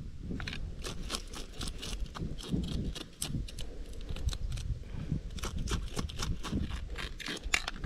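Knife scraping the scales off a tilapia: a rapid, irregular run of short rasping strokes, a few each second.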